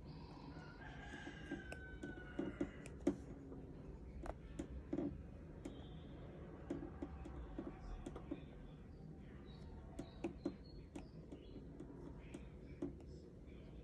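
Apple Pencil tip tapping and clicking on the iPad's glass screen, light irregular taps over a low steady room hum.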